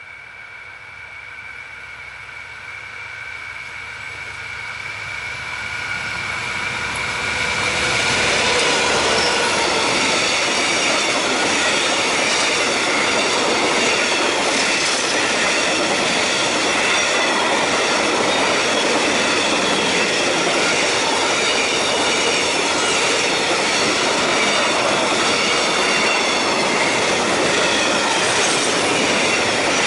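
Empty alumina freight train approaching and passing: a steady high rail whine and a rising rumble build for about eight seconds as the locomotive draws level. Then a long string of empty alumina hopper wagons rolls by, loud and steady, its wheels squealing in several high wavering tones.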